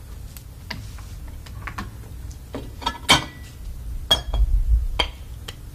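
Kitchen utensils clinking against a pot and serving dish as a portion of stew is dished up: a handful of light, separate clinks, the loudest about three seconds in with a brief ring.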